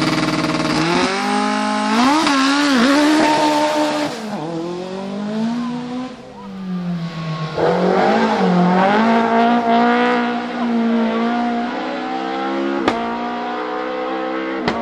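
Rally car engines revving hard and accelerating away, the engine note climbing and dropping repeatedly through gear changes, with a single sharp crack near the end.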